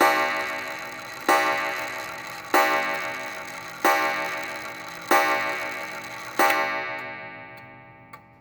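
Regulator wall clock striking on a very deep coil gong: six evenly spaced strikes about 1.3 seconds apart, each ringing on with many tones, the last dying away. After the last strike fades, the movement's ticking is heard.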